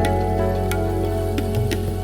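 Background music: soft, sustained ambient tones over a low drone, with light regular ticking percussion.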